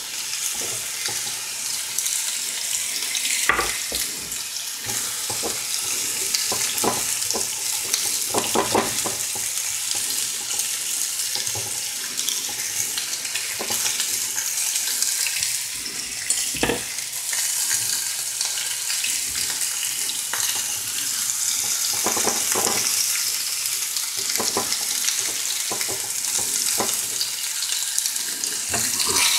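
T-bone steaks and onions sizzling in frying pans, a steady hiss with a few short knocks of utensils or pans.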